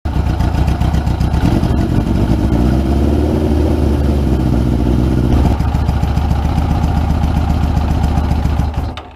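Suzuki GS550 air-cooled inline-four motorcycle engine running while its carburettor is adjusted by hand, its exhaust leaking through a hole in a downpipe. The note shifts about a second and a half in and again about five and a half seconds in, then cuts off suddenly near the end.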